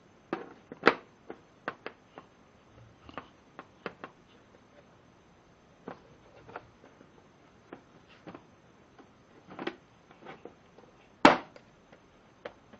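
Metal hex keys clicking and knocking as they are handled and snapped into their plastic holder, a series of irregular small clicks with one sharper, louder click about eleven seconds in.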